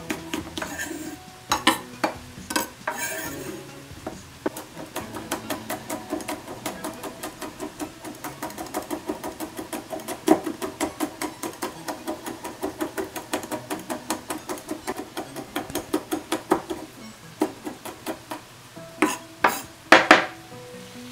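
Chef's knife rapidly chopping red chili peppers on a wooden cutting board, the blade knocking the board in a quick, even rhythm. A few heavier knocks come near the start and near the end.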